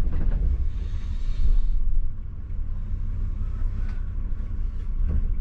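Tour coach running on the move, a steady low engine and road rumble heard from inside the vehicle. A higher hiss drops away about two seconds in.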